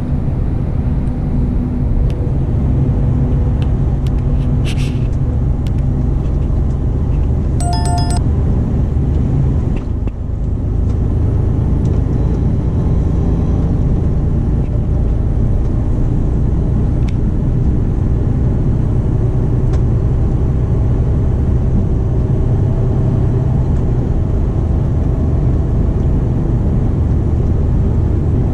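Steady drone of a Mercedes-Benz truck cab at motorway speed: diesel engine and road noise heard from inside. A brief electronic chime sounds about eight seconds in.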